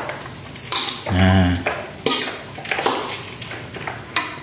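Metal spatula scraping and clinking against a steel wok while stir-frying chopped chicken gizzards and mustard-green stems, in several separate strokes.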